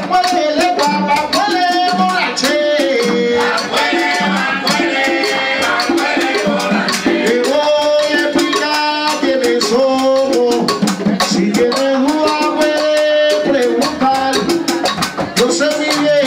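Live Cuban rumba: several voices sing a melody line together over hand drums and a steady shaker rhythm.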